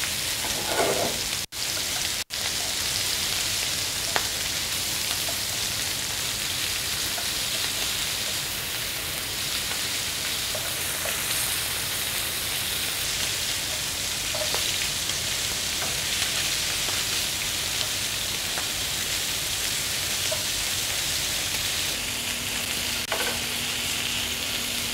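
Pork-belly-wrapped freeze-dried tofu rolls sizzling steadily in hot oil in a frying pan as they brown.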